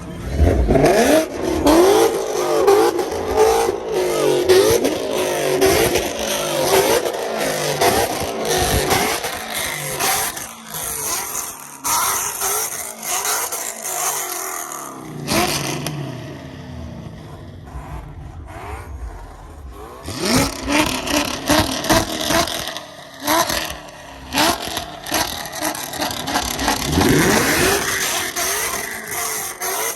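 Car engines revving hard, the pitch climbing and falling again and again. Several fresh rising revs come in the second half.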